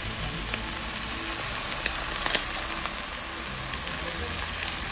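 Thin beef steak frying in a nonstick skillet: a steady sizzle with scattered small crackles and pops.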